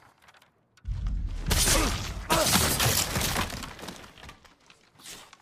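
Katana sword-combat sound effects: loud blade clashes and slashing impacts starting about a second in and dying away over the next three seconds, with a shorter hit near the end.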